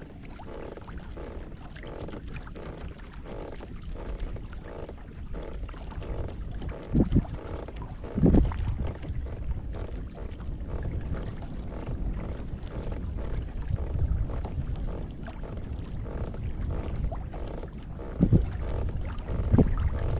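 Steady low rumble of wind on the microphone over water sounds around a kayak, with a few louder low swells about seven and eight seconds in and twice more near the end.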